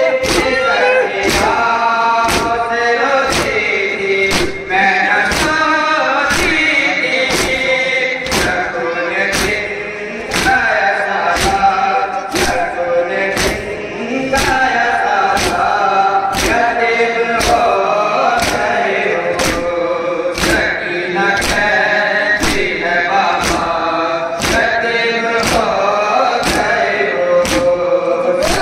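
A group of men chanting a nauha lament together, with a steady beat of hands striking chests (matam) in time, about three beats every two seconds.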